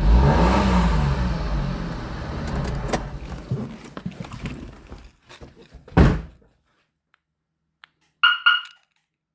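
A car engine running, its pitch rising and falling twice, then dying away over a few seconds. A single heavy thunk like a car door shutting comes about six seconds in, and two short electronic beeps come near the end.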